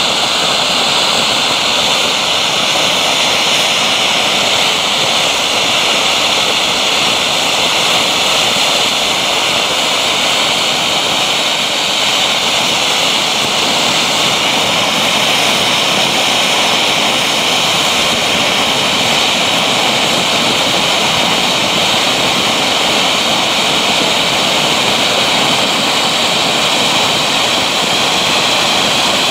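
Läubli Elfenzauber conic ground fountain (Vulkan) burning with a loud, steady, even hiss as it sprays gold sparks.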